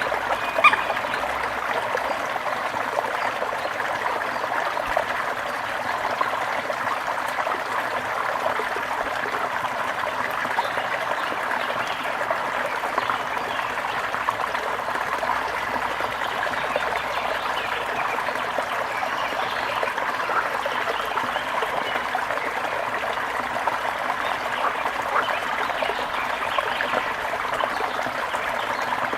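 Water trickling and splashing steadily, with one sharp click just under a second in.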